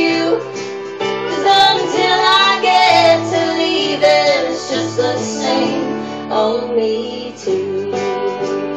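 A female voice singing a country song over instrumental accompaniment, with long held notes.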